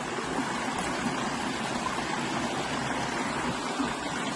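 Steady rush of a shallow, low-running stream flowing over rocks.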